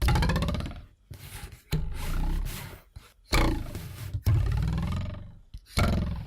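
A ruler twanged against the edge of a desk, struck about five times. Each twang starts suddenly as a low buzzing wobble whose pitch shifts as it rings, then dies away over about a second.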